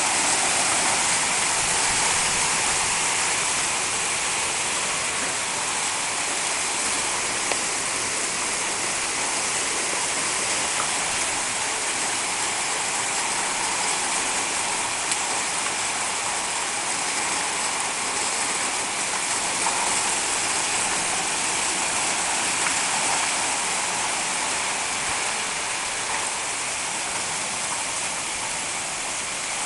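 Torrential rain pouring down in a severe storm: a dense, steady rush of rain, with storm wind in the trees.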